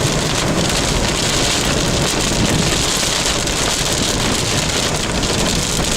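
Heavy rain falling steadily on a moving car, heard from inside the cabin, with the vehicle's road noise underneath.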